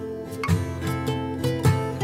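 Background music: acoustic guitar playing plucked notes and chords in a steady rhythm.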